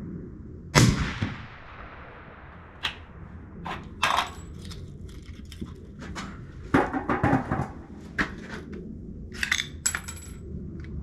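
A rifle shot with a sharp crack and a short ringing tail about a second in, then a string of short metallic clicks and clinks from a rifle and its cartridges being handled.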